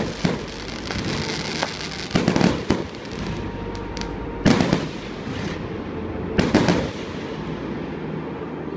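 Fireworks display: bursting shells give clusters of sharp bangs about two seconds apart, four times, over a steady crackle of sparks. The crackle dies away near the end.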